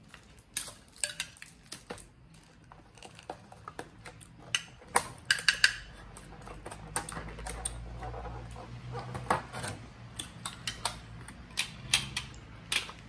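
Spoon and fork clinking and scraping against a plate and crab shell as crab is picked apart, in irregular sharp clicks, some ringing briefly.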